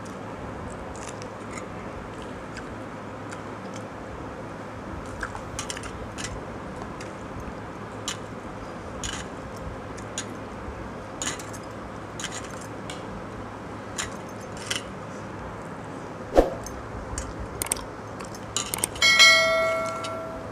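Eating by hand from steel bowls and plates: scattered soft clicks and clinks with chewing over a steady hiss, and one sharper clink about three-quarters of the way through. Near the end a ringing bell chime, the sound effect of a subscribe-button animation, is the loudest sound.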